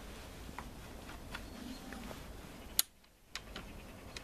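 Faint metallic clicks and taps of a spanner working the chainsaw's side case nuts as they are loosened to re-tension the chain, with one sharper click about three-quarters of the way through.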